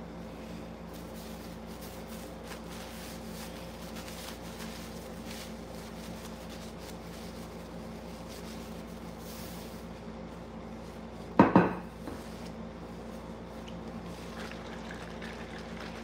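A ceramic dinner plate set down with a sharp double clunk about eleven seconds in, over a steady low hum and faint small handling clicks.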